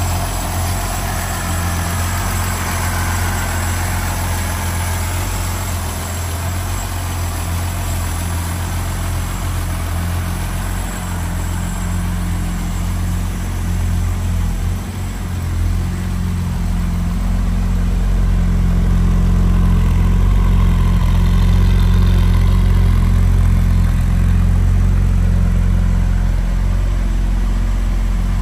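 1966 Mercedes-Benz engine idling steadily, with an even low hum. It grows somewhat louder past the middle.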